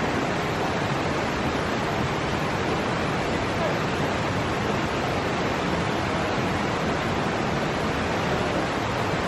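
Loud, steady rushing noise that stays even throughout, with no breaks or rhythm.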